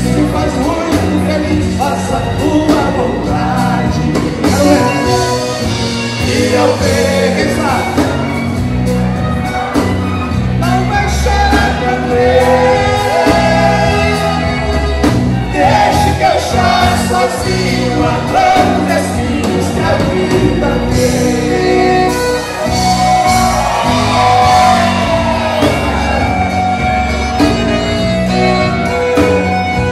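Live sertanejo band playing through a PA: button accordion with guitar and drums, and men singing the melody into microphones, with occasional shouts.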